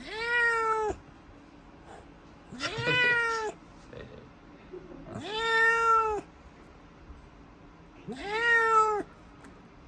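Domestic cat meowing four times from inside a pet carrier. Each meow is long and drawn out, lasts just under a second, rises at the start and then holds its pitch. These are protest cries from a cat that dislikes the vet.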